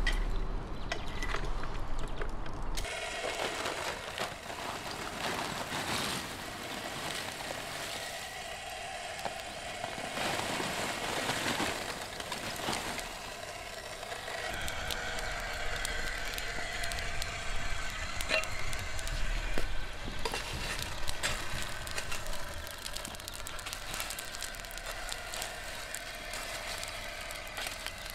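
Small electric rotisserie motor running with a steady whine as it turns a spit loaded with a whole lamb, with light mechanical clicking. In the second half, many sharp clicks and scrapes as charcoal is shovelled and spread under the spit.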